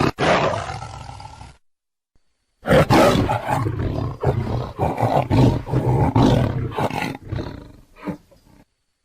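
A big cat roaring in rage, in two separate bouts: the first fades out within the first second and a half, then after a second of dead silence a longer run of loud, pulsing roars starts and dies away over its last second or so.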